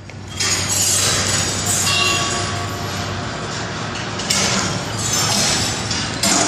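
Heavy balls rolling and clattering along the metal rails and spiral lift of a large kinetic ball sculpture: a continuous rolling rumble with frequent metallic clinks and knocks, and a few brief ringing clanks about two seconds in.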